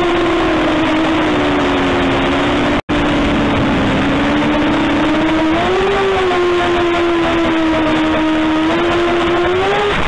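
An x210 racing quadcopter's brushless motors and propellers whine steadily in flight, the pitch dipping and rising with the throttle. It is heard through the onboard camera's microphone, with rushing air noise. The audio drops out for an instant about three seconds in.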